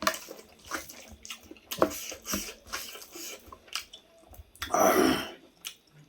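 Close-up wet eating sounds: chewing and lip smacking in many short clicks, with one longer, louder wet sound about five seconds in.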